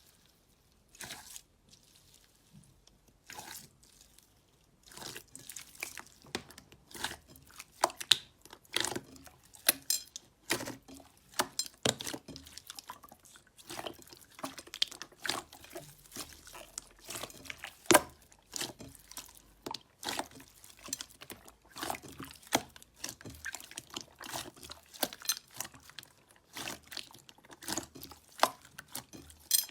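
Slime being squeezed and worked, making a run of wet clicks and pops, sparse for the first few seconds and then dense and irregular.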